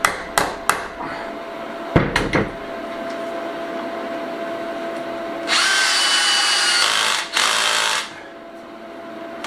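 A few sharp taps and a knock on a plywood mounting board. Then a cordless drill-driver runs with a steady whine for about a second and a half, pauses briefly and runs again for half a second, driving a screw into the board.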